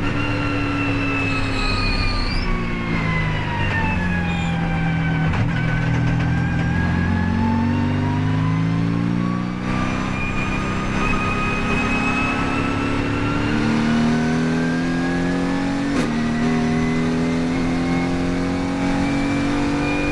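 Mercedes-AMG GT4 race car's twin-turbo V8 heard from inside the cockpit at track speed, its pitch falling over the first several seconds, then climbing steadily under full throttle through the second half. A high whine rises and falls along with the engine.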